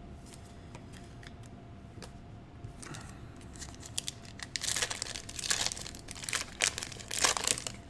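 Foil trading card pack (Panini Prizm) being torn open and crinkled by hand, in a run of sharp crackling bursts that starts about halfway through.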